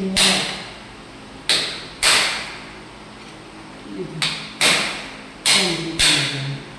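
A series of about seven sharp, hissy hits, mostly in pairs about half a second apart, each one fading quickly.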